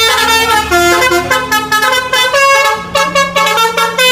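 Telolet bus horn playing a tune: several horn tones at once, stepping from note to note in a bright, loud melody.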